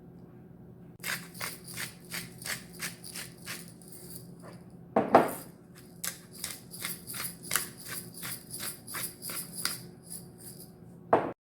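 A rapid, even series of light, sharp clicks, about three a second, with a louder, duller knock about halfway through and another just before the end.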